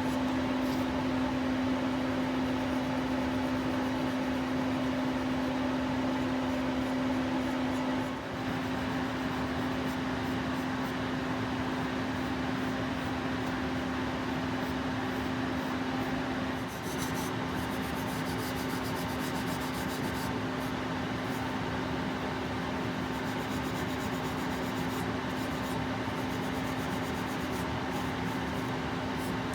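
A steady electric machine hum, a constant low tone over even hiss, like a fan or motor running. It dips briefly twice, about 8 and 17 seconds in.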